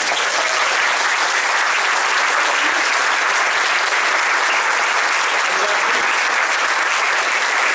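A large audience applauding, a dense, steady clapping that holds at the same level throughout.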